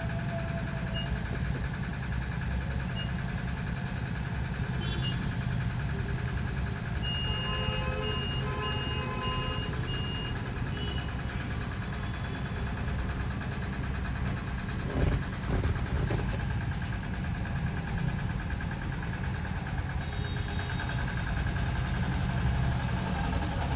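A steady low mechanical hum of a running motor, heard from inside a car at a fuel pump while fuel is being dispensed. About seven seconds in comes a string of short, high, evenly spaced beeps, and a couple of knocks follow around fifteen seconds in.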